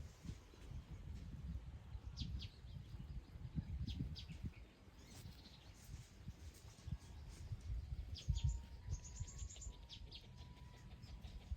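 Birds chirping, short high chirps in quick runs with a denser burst about two-thirds of the way through, over a low rumble.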